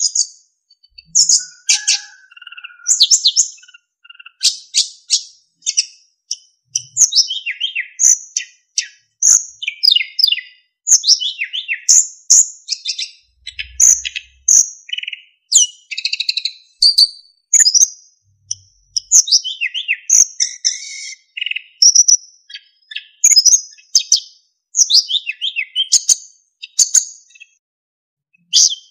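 Sikatan emas (golden flycatcher) singing: a lively, almost unbroken run of short high chirps, quick falling trills and clear whistled notes, with a short pause near the end.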